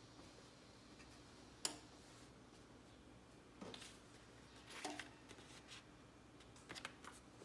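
Faint handling sounds of a fabric garment and a sheet of sublimation transfer paper on a heat press: a sharp tick about one and a half seconds in, then three short rustles over faint room tone.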